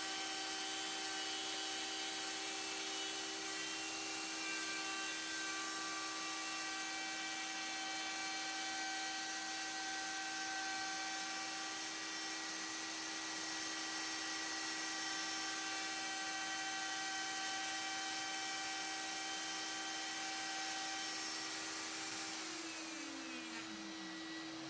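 Router running at full speed with a steady high whine while routing an inlay pocket to depth along a template. Near the end it is switched off and its pitch falls as it winds down.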